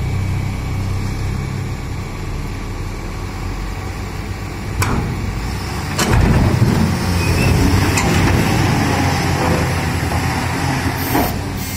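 Heavy diesel machinery running, an excavator working beside a tipper truck. The engine note grows louder and rougher from about six seconds in, and there are three sharp knocks, the first just before the rise. A short hiss comes near the end.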